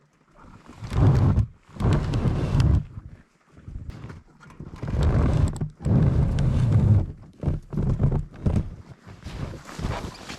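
Snowmobile engine started again after the key shut it off, running rough in several uneven bursts of revving with quieter gaps between.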